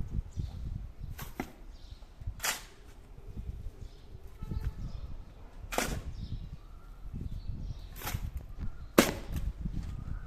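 Five sharp knocks at uneven intervals, a second or more apart, over a low rumble.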